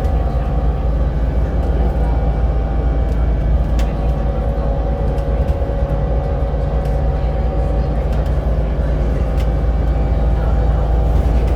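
Volvo B7RLE bus with a ZF Ecolife automatic gearbox under way: a steady low engine and driveline rumble, with a steady whine above it and a few faint clicks or rattles.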